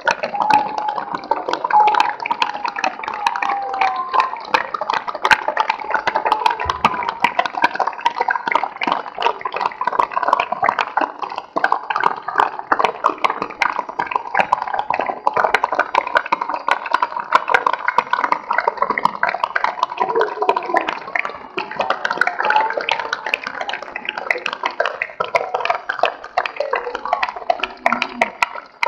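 Large crowd applauding, long and unbroken, with voices calling out among the clapping near the start.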